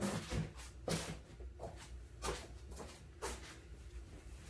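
Soft footsteps and shuffling on foam floor mats: a handful of brief, muffled thuds and rustles about half a second to a second apart, over a low steady hum.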